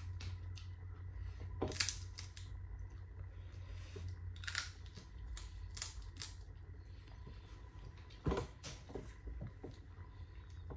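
A few short, sharp clicks and small cracks at uneven intervals over a low steady hum, the loudest about eight seconds in.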